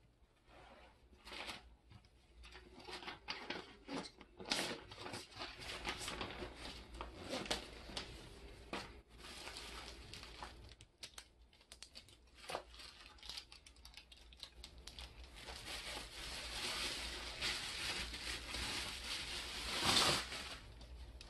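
Plastic packaging wrap crinkling and rustling in the hands as telescope parts are unwrapped, in irregular crackly handfuls. It grows loudest near the end as a clear plastic sheet is pulled free.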